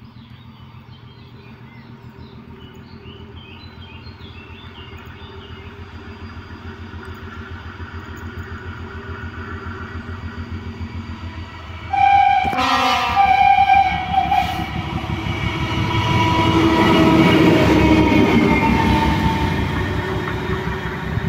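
ČD class 743 diesel locomotive approaching, its engine hum growing steadily louder. About halfway through it sounds its horn, which is the loudest sound. It then runs close by with the engine at its loudest.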